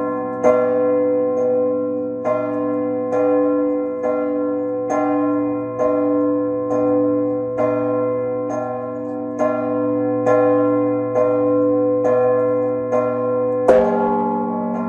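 Peal of several bronze church bells, rung by ropes pulling the clappers against the hanging bells. Strikes come about once a second and the ringing of each overlaps the next, in several pitches at once. Near the end a louder strike brings in a deeper, sustained tone.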